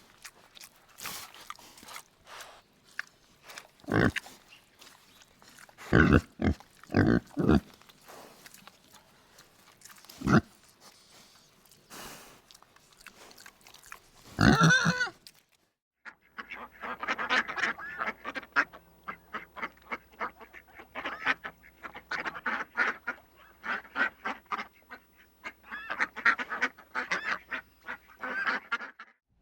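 Animal calls: first a few separate sharp grunts and squeals from a pig, then from about halfway a dense, continuous run of waterfowl quacking and honking.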